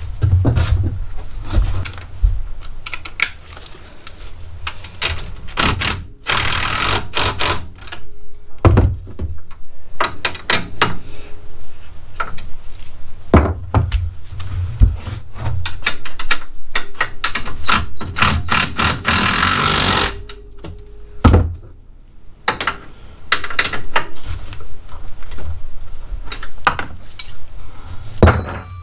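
Hand tools working on a UTV's front suspension: repeated metal clanks and knocks as parts are handled and fitted, with two longer bursts of rapid clicking, about six seconds in and again near nineteen seconds.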